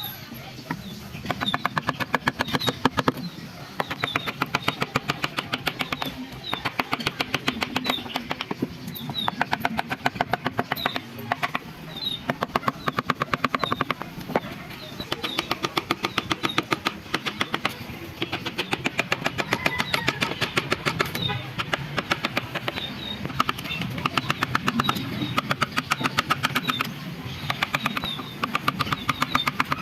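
Carving tool working wood in bursts of rapid, evenly spaced tapping strokes lasting a few seconds each, with short pauses between bursts.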